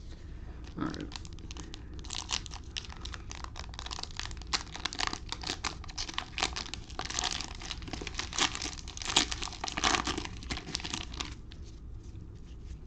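Cellophane wrapper of a basketball card cello pack crinkling and tearing as it is opened by hand: dense, irregular crackles that start about a second in and stop shortly before the end.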